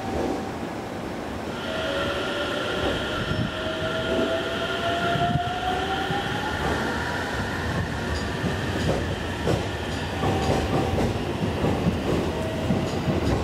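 Electric rail traffic at a station platform: the rumble and rail clatter of a JR 373-series electric train approaching to pass through. From about two seconds in, steady high whines sound over it, along with a tone that rises slowly in pitch.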